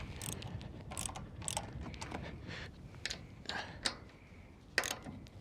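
Scattered sharp clicks and knocks from hand work on a metal deck railing panel and its fittings, about six at uneven intervals, over a low rumble of wind on the microphone.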